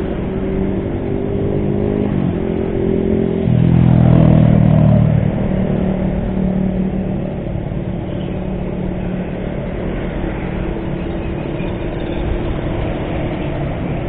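Motor scooter riding in road traffic: engine hum over road and wind noise, with a louder low engine rumble from about three and a half to five seconds in.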